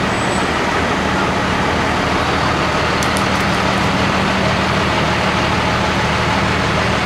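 A motor vehicle's engine running steadily at low speed, a continuous low hum under street noise.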